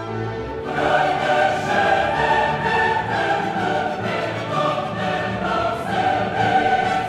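Background music, orchestral with a choir, growing fuller less than a second in.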